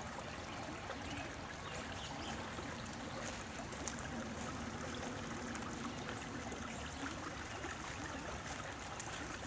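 A stream flowing: a steady, even rush of running water.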